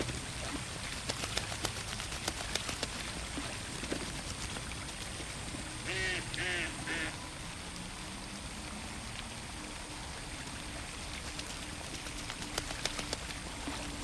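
Ducks on a pond: three quick quacks about six seconds in, over a steady wash of water sound with scattered small splashes and drips.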